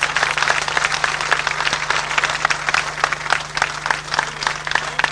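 Audience applauding: a dense, steady spell of many hands clapping that eases a little near the end, over a low steady hum.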